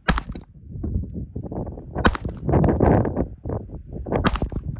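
.22 gunshots: three sharp cracks about two seconds apart, with an uneven rumbling noise between them.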